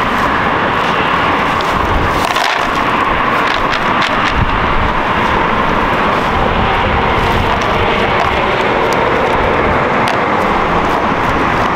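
Steady outdoor noise of wind across the microphone mixed with vehicle traffic rumble, with a few faint light clicks.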